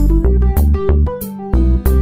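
Background music with a steady beat, deep bass notes and a plucked melody.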